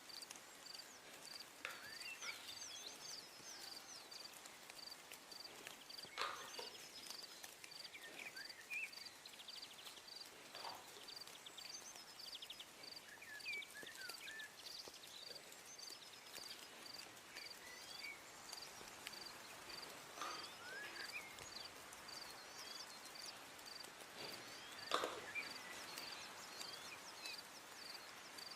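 Faint background ambience: a high, regular chirp repeating about twice a second, with scattered bird-like chirps and a few knocks, the loudest near the end.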